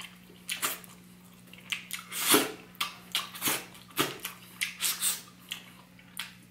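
Close-up eating sounds of a person gnawing and sucking meat off a pork neck bone: short wet smacks and slurps at irregular intervals, the loudest a little past two seconds in.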